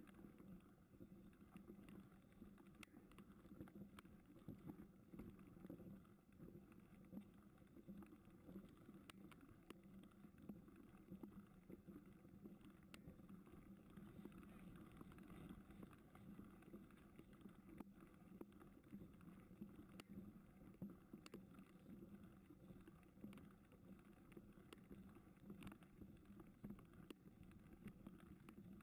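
Faint, steady rumble of a mountain bike riding over a gravel track, with scattered small clicks and ticks.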